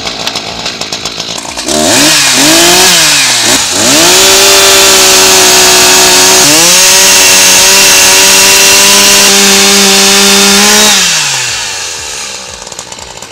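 Echo CS-600 60 cc two-stroke chainsaw idling, then revved up and down a few times. It is held at high revs while it cuts through a log, then drops back to idle near the end.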